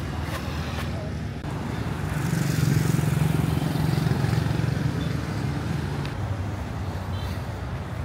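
City street traffic: a motor vehicle's engine running past close by, swelling louder from about two seconds in and fading by about six seconds, over a steady wash of traffic noise.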